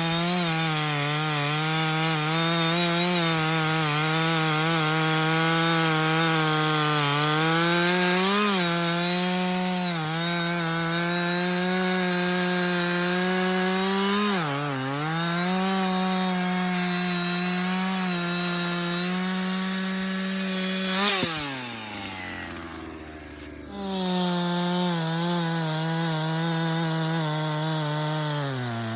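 Two-stroke Husqvarna chainsaw running at full throttle, cutting through sycamore wood, its pitch sagging briefly a few times as the chain bites. About 21 s in it drops back toward idle for a couple of seconds, then revs up again and carries on cutting.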